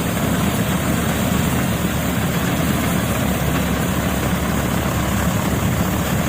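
Wheat harvesting machine's engine running steadily under load, with the steady clatter and rush of its harvesting works.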